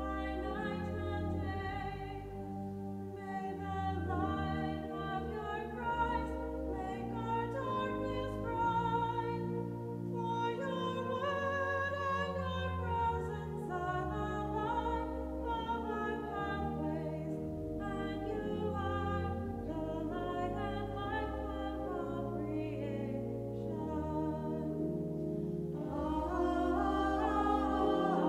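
Small church choir singing an evening prayer liturgy in unison and parts, with sustained low bass notes underneath. Near the end the singing briefly thins, then comes back fuller and louder.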